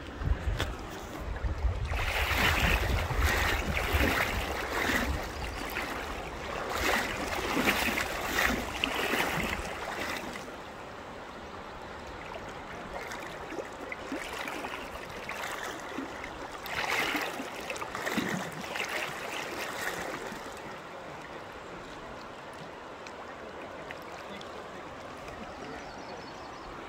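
Shallow river running over a rocky bed, a steady rush of water that swells louder between about two and ten seconds in and again around seventeen to twenty seconds.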